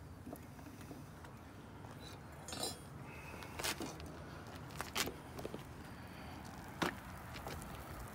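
Steel crucible tongs being put down and handled on a metal rack: a few separate sharp metal clinks and knocks, about four spread over several seconds, over a low steady rumble.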